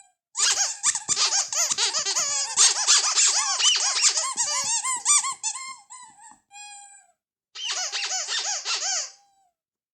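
Ledraplastic rubber squeaky toy squeezed rapidly over and over: a dense run of squeaks that thins out about six seconds in, then a second, shorter burst of squeaks near the end.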